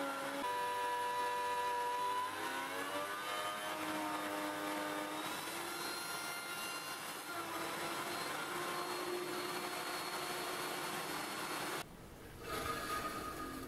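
Table saw running: a steady motor whine over a hiss, its pitch dipping and recovering a few seconds in. It breaks off abruptly about twelve seconds in.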